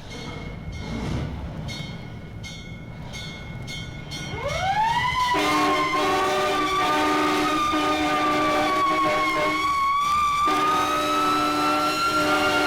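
Vintage stereo sound-effect recording of an emergency vehicle. Rough noise and clicks give way, about four and a half seconds in, to a siren winding up and holding a slightly wavering wail over a held multi-note horn chord. The horn chord breaks off briefly and sounds again.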